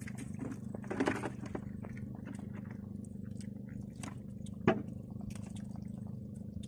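A small boat motor hums steadily. Over it come rustling and light clicks as a collapsible crab trap's net mesh and metal frame are handled, with a brief rustle about a second in and one sharp knock a little past the middle.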